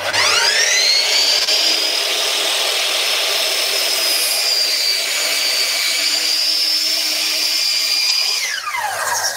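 Bosch sliding mitre saw, fitted with a Cut Pro blade, spinning up with a rising whine and running steadily while it trims a thin sliver off the end of a board to square it. Near the end the trigger is released and the motor winds down with a falling whine.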